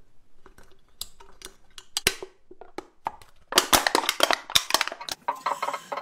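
Thin aluminium drink can being crumpled by hand: a string of sharp metallic crinkles and cracks, sparse at first and then dense and loud for the last two and a half seconds.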